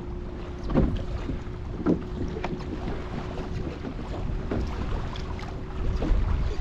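Kayak on the water: low wind rumble on the microphone and water noise against the hull, with a few short knocks about one and two seconds in and a faint steady hum that stops near the end.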